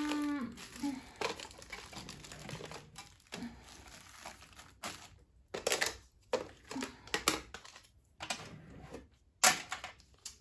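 Small plastic baggies crinkling and rustling in irregular bursts as they are handled and sorted.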